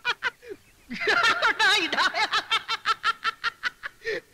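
A person laughing in a long run of quick, high-pitched bursts, about five or six a second, after a brief lull near the start.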